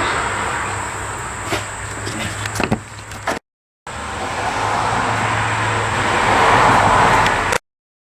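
A motor vehicle engine running steadily, with a low hum under broad noise that swells about two-thirds of the way through; the sound breaks off at two edit cuts.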